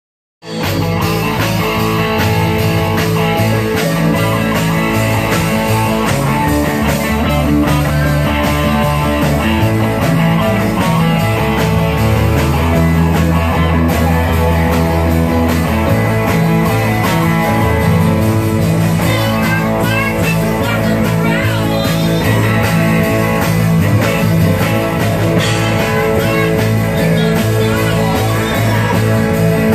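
Live rock band playing a rock and roll number: electric guitars, bass guitar and drum kit, with the vocals low in the mix, recorded on a phone.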